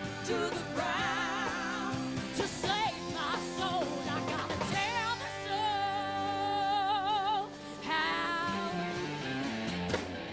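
A rock band playing live, with a woman singing lead over electric bass and a drum kit. Her voice wavers with vibrato and holds one long note in the middle.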